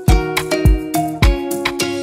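Background music: a plucked-string melody over a steady beat.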